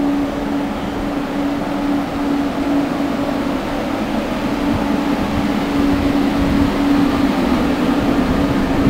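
Steady droning hum of a standing passenger train idling at a platform.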